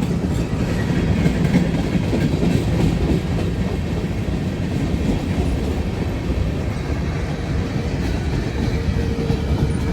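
Norfolk Southern freight train's cars rolling past on the track, a steady, heavy rumble.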